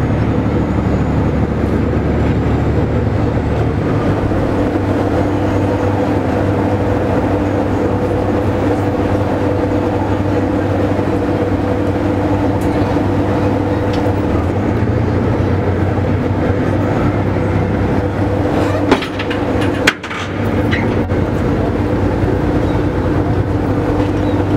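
Tour boat's engine running with a steady low drone and hum. Two sharp knocks come about three-quarters of the way through.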